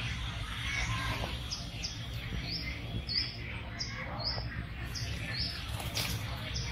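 Wild birds chirping in the trees: a run of short, high chirps, about two a second, over a low steady background rumble.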